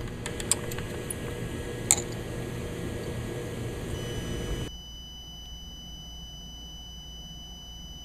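Screwdriver clicking on the screws of a MerCruiser Bravo 3 drive's trim position sender over a steady hum, with one sharper click about two seconds in. Just under five seconds in the hum drops away and a steady high-pitched electronic tone remains.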